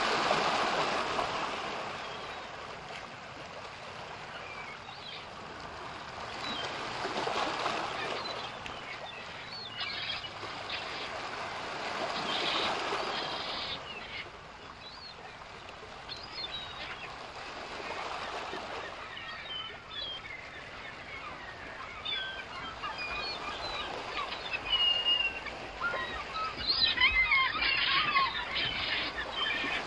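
Ocean waves washing in and out about every five to six seconds, with seagulls calling over them; the gull calls grow busier and louder near the end.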